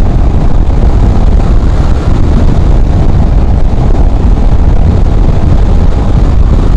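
Loud, steady wind rush buffeting the microphone of a motorcycle riding at speed, with the Royal Enfield Himalayan's engine running under it.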